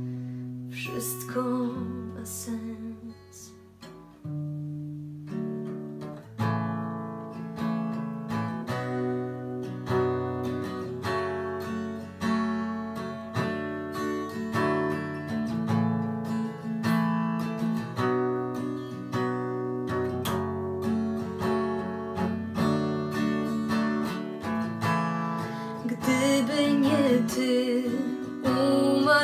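Instrumental passage of a pop song: acoustic guitar strumming chords over a bass line, softening briefly about four seconds in. A singing voice comes back in near the end.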